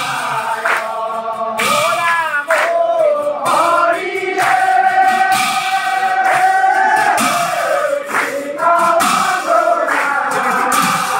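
Congregation of men singing a devotional chant together in unison, with long held notes and scattered hand claps.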